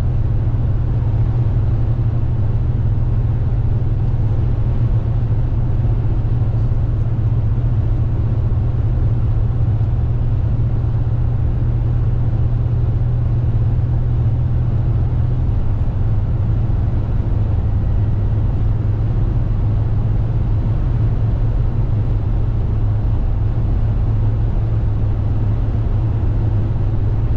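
A car driving at highway speed: a steady low drone of engine and tyre noise with an even road hiss above it, unchanging throughout.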